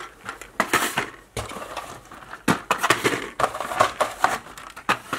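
Cardboard model kit boxes being handled and moved on a shelf: irregular scraping and rustling of card with several sharp knocks.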